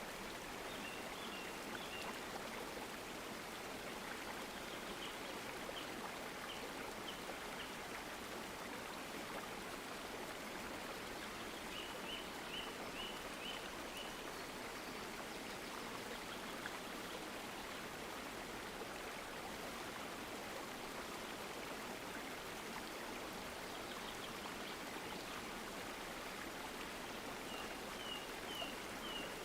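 Steady rush of a flowing stream, with a small bird giving series of short, quick high chirps a few times: near the start, around the middle and near the end.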